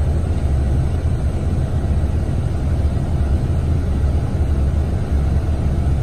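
Engine idling with a steady low rumble.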